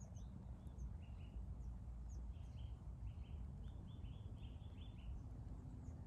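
Small songbirds chirping: a run of short, quick notes, thickest from about a second in until near the end, over a steady low rumble.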